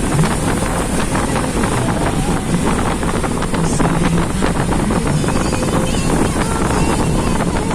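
Steady wind rushing over the microphone, with the low running rumble of a vehicle on the road underneath.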